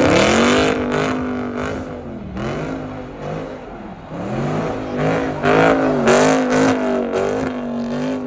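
A car engine revving hard and repeatedly, its pitch dipping and climbing again about once a second as the car slides in donuts, with the rear tyres spinning and smoking on the asphalt.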